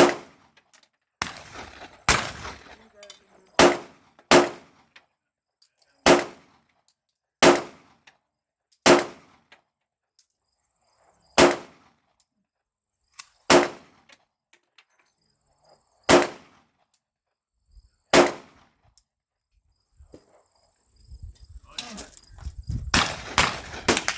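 Pistol shots fired one at a time, about a dozen sharp reports one to two and a half seconds apart. Near the end a quicker string of shots comes over rumbling noise.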